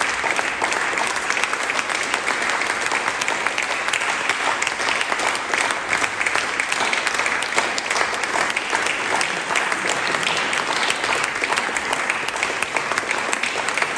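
Audience applauding, a steady dense wash of many hands clapping.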